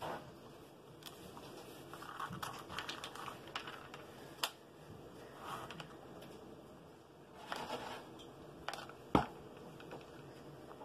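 Scattered small clicks, taps and rustles of hands handling paper-plate craft materials, with one sharp click near the end.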